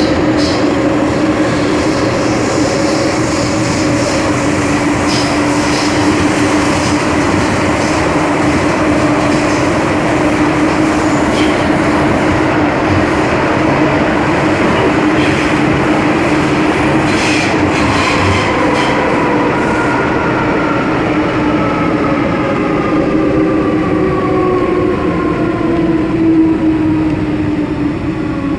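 MTR M-Train metro car running through a tunnel: a steady rumble of wheels on rail, with a held hum and a few sharp clicks from the track. About two-thirds of the way in, the traction motors' whine starts falling steadily in pitch as the train brakes.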